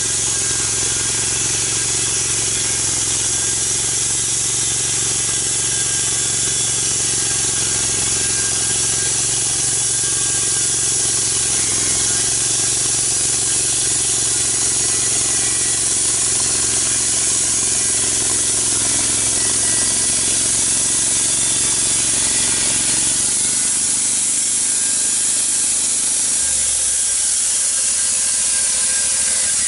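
Engine-driven log-milling saw running under load as it cuts lengthwise through a big log, with a steady high hiss from the cut. The engine note changes and drops lower near the end.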